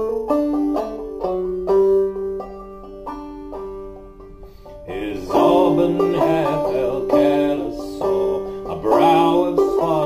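Clawhammer banjo in sawmill tuning playing an instrumental break between verses of a ballad, plucked notes ringing and decaying. About halfway through a man's voice comes in over the banjo, singing or humming the tune.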